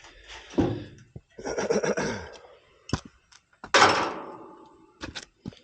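Handling noises from tools and parts: a few knocks and clicks, a short rattle, and a louder clatter about four seconds in that dies away.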